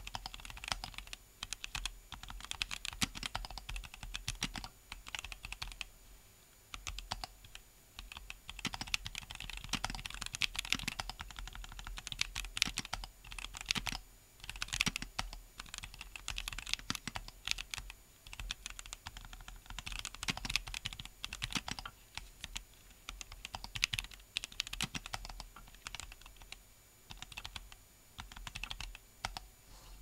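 Typing on a Keychron Q60 mechanical keyboard with Drop Holy Panda X tactile switches and Drop Tokyo60 keycaps: a dense run of key clacks, broken by brief pauses every few seconds.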